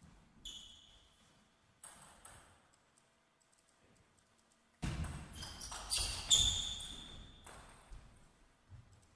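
Table tennis ball and rallying: a few separate ball bounces early on, then from about five seconds in a fast exchange of bat hits and ball bounces on the table, each a sharp ringing tick, over heavy thuds of the players' feet, ending after about two and a half seconds.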